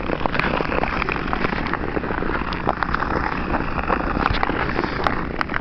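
Ice skates scraping over rough, scratched natural ice: a steady hiss scattered with small ticks and crackles.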